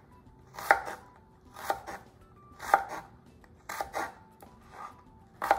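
Kitchen knife cutting an apple into small pieces on a wooden cutting board: sharp chops against the board at about one a second.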